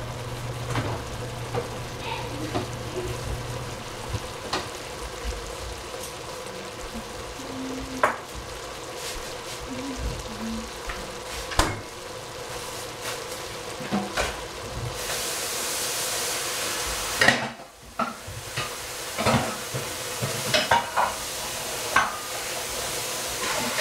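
Vegetables sizzling in an oiled frying pan while a utensil stirs and scrapes them, with scattered clinks against the pan. About fifteen seconds in the sizzle turns into a louder, steadier hiss.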